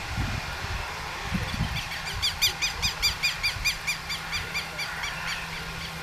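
A bird calling in a quick run of short chirps, about five a second, that starts about two seconds in and stops about five seconds in, over a steady low rumble.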